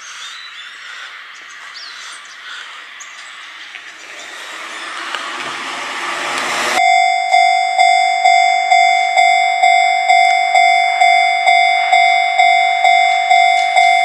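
Japanese railway level-crossing warning bell ringing in a steady ding-ding about twice a second, starting abruptly about seven seconds in as the crossing is activated. Before it, a rushing noise grows louder, with a few bird chirps.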